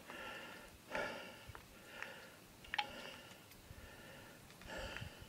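A person breathing audibly through the nose, about one faint, slightly whistly breath a second, with a small click near the middle.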